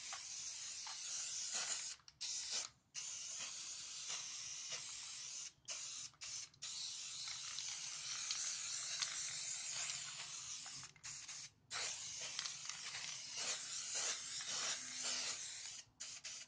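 Aerosol can of Plasti Dip spraying, a steady hiss held for a few seconds at a time and broken by several short gaps where the nozzle is let go between passes.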